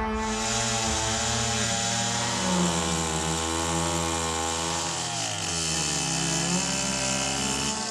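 Gasoline chainsaw cutting into the trunk of a large elm, its engine running under load, its pitch sagging about five seconds in and picking up again.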